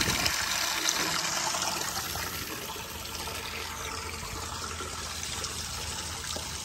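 Steady hiss of running water, with a couple of light knocks near the start and fading slightly after about two seconds.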